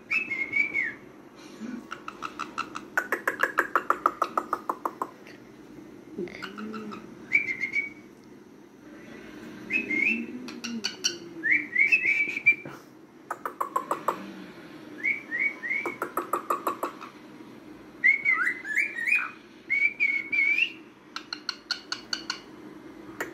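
Male cockatiel talking: short whistled notes that glide up and down, alternating every few seconds with rapid clicking chatter as it mimics speech, calling a name it has been taught.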